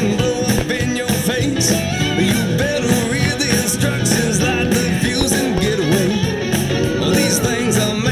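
Background music: an up-tempo rock song with guitar and a steady drum beat.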